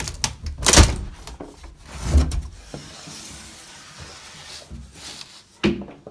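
A cupboard panel being taken off and handled: a series of knocks and thumps, the loudest about a second in and another about two seconds in, then a quieter stretch of rustling and a few clicks near the end.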